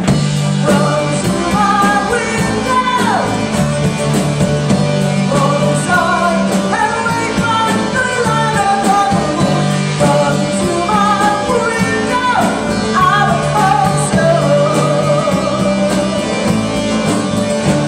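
Amateur rock band playing live: a passage without sung words, with a lead melody sliding up and down in pitch over sustained low notes.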